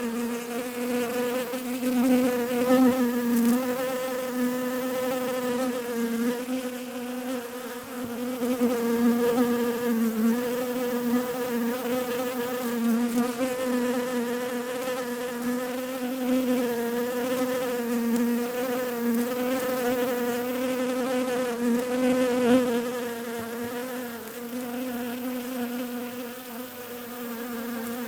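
Bees buzzing together in a continuous humming drone whose pitch wavers slightly up and down.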